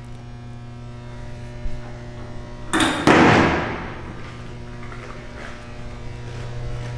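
Steady low electrical hum, broken about three seconds in by one loud sudden clunk with a hissing tail that fades over about a second.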